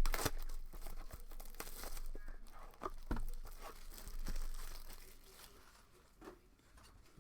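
Plastic wrapping being torn and crinkled off a sealed box of trading cards, in quick irregular crackles that are loudest at the start and trail off.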